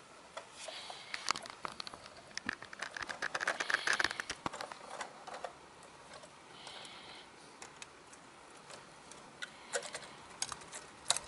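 Small clicks and rattles from a 1/34-scale diecast Heil Python side-loader garbage truck model, pushed by hand and its automated arm worked to grab a cart. A dense run of clicking comes about one to five seconds in, and a few sharper clicks near the end.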